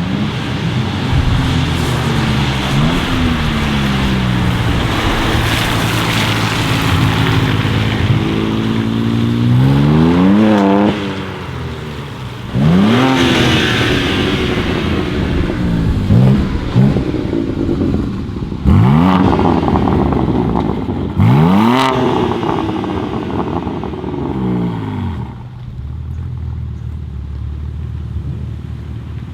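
BMW M3 G80 Competition's twin-turbo straight-six with an R44 Performance exhaust, revved from idle. It makes one long climb about ten seconds in, then a run of sharp blips that fall away each time, with crackles on a couple of the drops, and settles back to a steady idle near the end.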